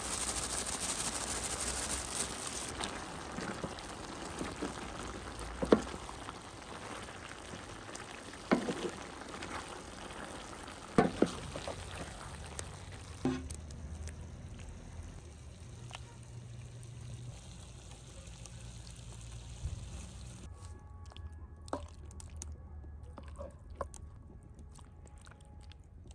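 Cooking sounds from a cast-iron pot of beef stew over a wood fire. A loud hiss fills the first couple of seconds. Then come a few sharp knocks of a wooden ladle against the cast iron, and the wet pour of stew being ladled into the pot.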